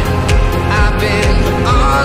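Background music: an English pop song with a steady beat.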